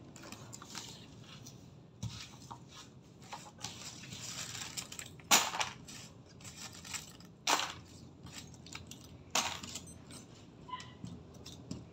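Pieces of cut-up CD being handled on a tabletop: small plastic clicks and rustling, with three loud sharp clacks about two seconds apart.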